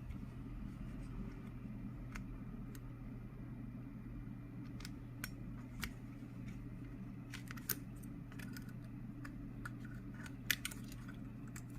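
Scattered small clicks and taps of metal repair tools on an opened iPhone 11 as its logic board is taken out of the housing, over a steady low hum.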